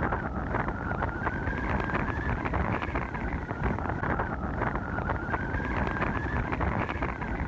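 Car driving: a steady rumble with many small clicks and knocks, and a faint high whine that wavers slowly up and down.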